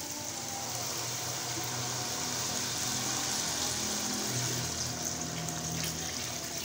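Very hot sugar syrup being poured in a steady stream into a pan of ghee-roasted semolina, splashing and bubbling up as it hits the hot mixture.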